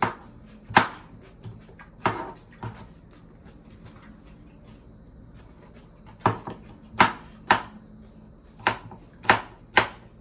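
Knife chopping cucumber into small pieces on a cutting board: sharp, irregular knocks, with a pause of about three seconds midway.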